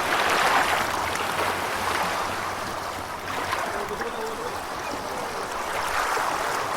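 Gentle ocean waves washing in and receding, with a wave swelling just after the start and another about six seconds in.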